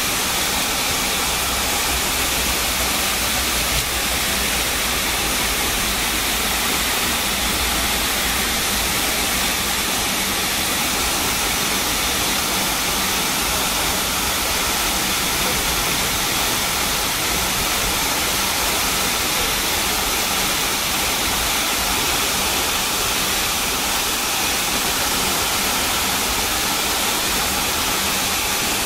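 Steady rushing hiss inside the cabin of a McDonnell Douglas MD-80 taxiing, from its tail-mounted Pratt & Whitney JT8D turbofans at idle.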